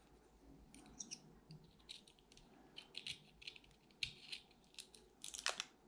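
Faint, irregular scratching and clicking of a craft knife scraping and prying the plastic shrink wrap off a cylindrical 18650 lithium-ion cell, with a denser, louder run of scrapes near the end.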